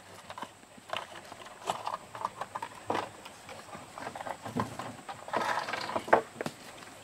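Scattered light knocks and clicks, irregularly spaced, with a few louder ones near the end.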